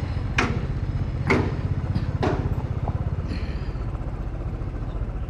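Motorcycle engine running at low road speed, a steady low pulsing exhaust note. Three sharp knocks come about a second apart in the first half, and a brief high falling squeak a little after the middle.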